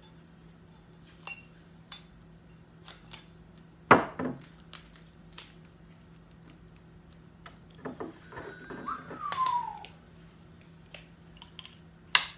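Glassware and a small sample bottle handled on a wooden table: scattered light clicks and clinks, one sharp knock about four seconds in, a cluster of small clatters with a short falling squeak around nine to ten seconds, and a sharp click near the end.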